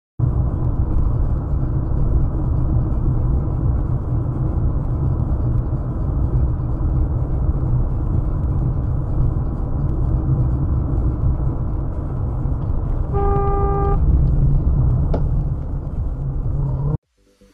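Steady road, engine and wind noise recorded in a car driving at highway speed, with a car horn sounding once, briefly, about thirteen seconds in. The noise cuts off suddenly near the end.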